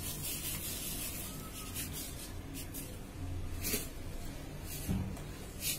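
Wooden spatula rubbing and scraping in a nonstick pan of milk as it is stirred, with a few soft knocks, over a low steady hum.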